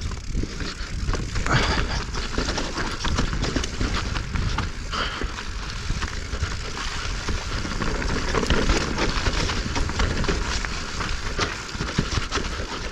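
Specialized Stumpjumper Evo Alloy mountain bike riding down a rock section of trail, with its tyres, fork and frame rattling and knocking in a continuous run of sharp impacts over a steady low rumble.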